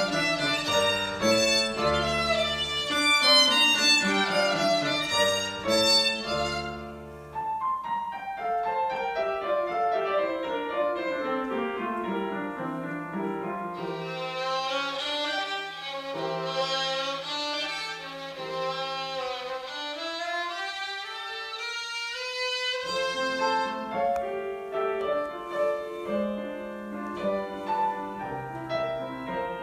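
Violin and piano playing a classical sonatina together, the violin carrying the bowed melody over piano chords. In the middle stretch the piano's low part thins out under the violin, then comes back in fully near the end.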